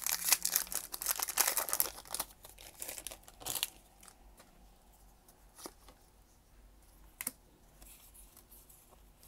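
Foil Pokémon Vivid Voltage booster pack being crinkled and torn open for about two seconds, then quieter rustling and a few soft clicks as the cards are pulled out and handled.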